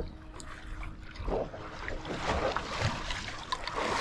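Water lapping and splashing against the hull of a small fishing boat, with scattered light knocks.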